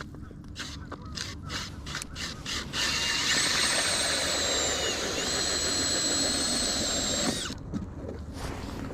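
Power ice auger drilling a hole through the ice: a steady whine for about four and a half seconds that sags in pitch partway through as it bites, then cuts off. Before it starts, a series of short clicks.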